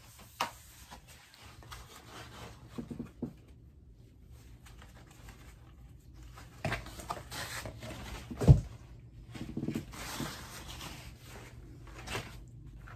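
Handling noise from a playard's plastic-and-fabric changing-table frame being fitted: rustling fabric with scattered plastic clicks and knocks, and one loud thump past the middle.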